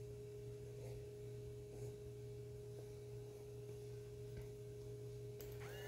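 Small DC motor of a homemade 3D-printed mini water pump running on a 6-volt battery, a faint steady hum on one pitch. A few light clicks come from the clip leads being handled.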